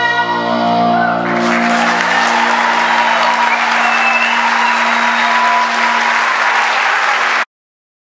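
A rock choir's final chord is held with its accompaniment and fades out as audience applause comes in about a second in and fills the hall. The sound cuts off suddenly near the end.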